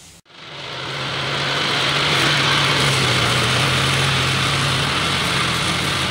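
Garden tractor engine running steadily as the tractor drives across the field, fading in over the first second or so.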